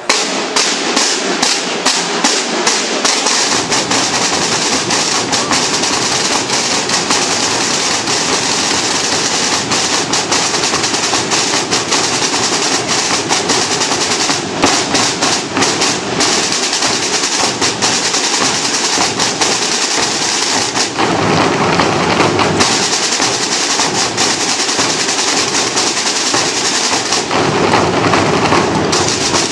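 A Holy Week drum corps of snare drums and bass drums playing together. It opens with separate sharp strokes that come quicker and quicker. The bass drums join about three seconds in, and the playing becomes dense, continuous drumming with rolls.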